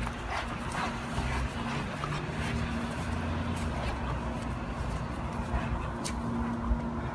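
A St. Bernard and its handler walking briskly on a leash: footsteps and the dog's movement over a steady low rumble, with a few faint short clinks.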